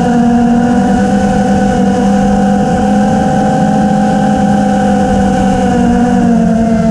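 FPV quadcopter's electric motors and propellers whining steadily, their several tones drifting slightly in pitch with throttle changes, over a low rushing noise.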